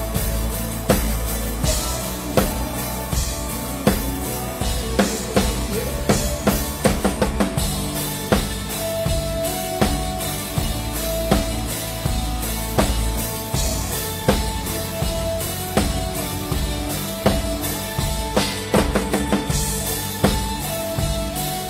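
Acoustic drum kit played live with a band: kick and snare keep a steady rock beat with cymbals ringing over it, backed by sustained tones from the other instruments.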